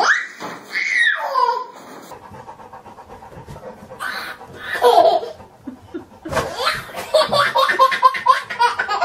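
A baby laughing in high, rising and falling peals for about two seconds, then more bursts of laughter about four seconds in and again from about six and a half seconds on.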